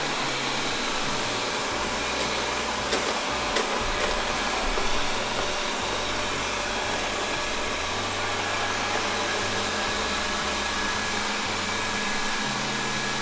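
Xiaomi Viomi V3 robot vacuum running with its high-powered suction, together with a second robot vacuum: a steady, even fan noise. Two light clicks come about three seconds in.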